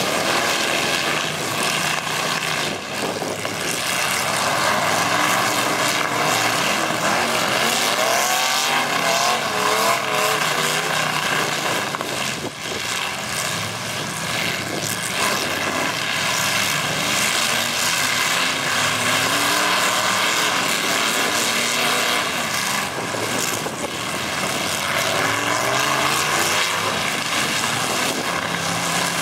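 Several demolition-derby pickup truck engines running and revving together in a loud, steady din, their pitches rising and falling as the trucks accelerate and back off.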